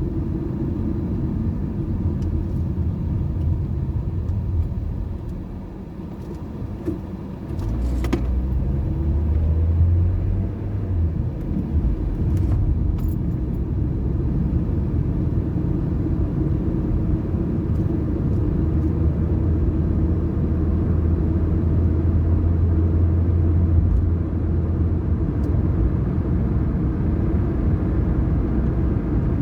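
A car driving, with a steady low rumble of road and engine noise. The rumble eases about five seconds in, picks back up a couple of seconds later, and there is a light click about eight seconds in.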